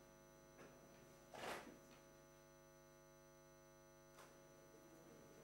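Near silence with a faint, steady electrical mains hum. A brief noise comes about a second and a half in, and a fainter one near the end.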